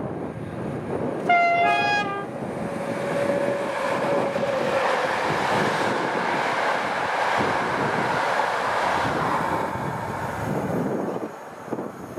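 EP07 electric locomotive sounds a short two-tone horn blast about a second in. It then passes close by hauling its passenger coaches, a steady noise of wheels on rail that drops away near the end as the last coach clears.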